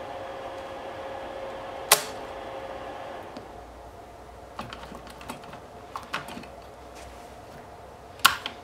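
A handful of sharp, irregular clicks, the loudest about two seconds in and another near the end, over a steady electrical hum that stops about a third of the way through.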